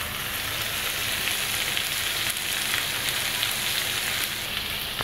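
Lobster pieces frying in butter in a frying pan, giving a steady sizzle with fine crackling as they brown.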